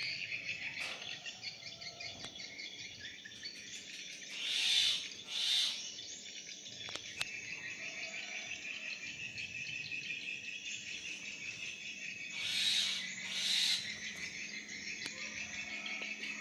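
An unseen animal gives a call of two short notes in quick succession, twice, about eight seconds apart, over a steady high chorus of insects.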